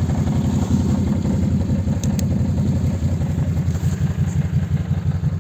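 Quad bike (ATV) engine idling steadily, with a couple of faint clicks about two seconds in.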